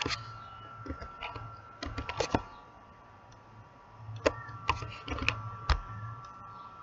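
Irregular clicking of a computer keyboard and mouse: a cluster of clicks about two seconds in and several more between four and six seconds, over a faint steady electrical whine.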